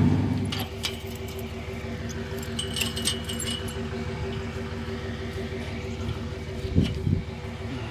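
Metal clinking and rattling as the front of a loaded round-bale hay trailer is worked by hand, over the steady hum of an idling truck engine, with a couple of dull thumps near the end.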